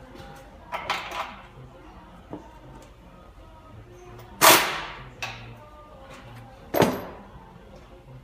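Sharp knocks and clanks of tools and metal parts worked under a car on a lift during a transmission job: a few light ones in the first seconds, the loudest about halfway through and another strong one near the end, each ringing out briefly.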